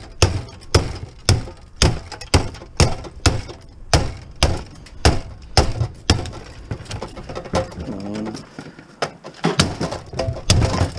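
Claw hammer striking a dishwasher's motor and pump assembly over and over, about two blows a second. The blows stop for about three seconds past the middle, then start again near the end.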